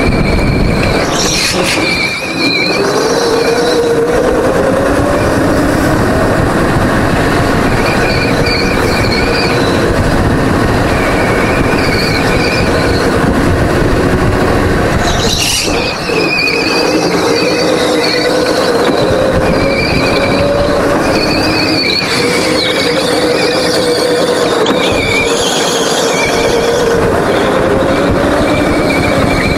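Go-kart engine running hard through a lap, its pitch climbing on the straights and dipping briefly about two seconds in and again near the middle. High-pitched tyre squeal comes and goes through the corners.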